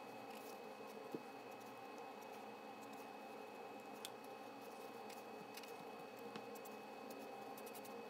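Faint, soft strokes of an Ohuhu alcohol marker on sketchbook paper over a steady low room hum, with a few light clicks, the clearest about a second in.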